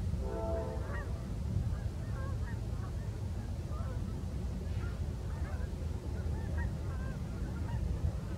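Geese honking repeatedly in short calls, with one stronger, fuller honk in the first second, over a steady low rumble.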